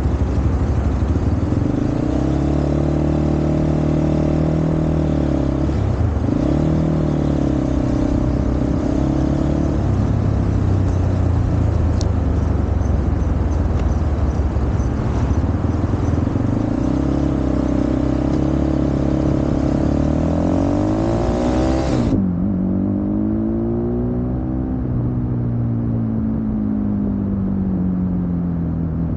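Cyclone RX3 motorcycle engine running at low revs, its pitch dipping and recovering as the bike pulls away slowly. About two-thirds of the way through it accelerates, the pitch rising and falling in sweeps through the gear changes.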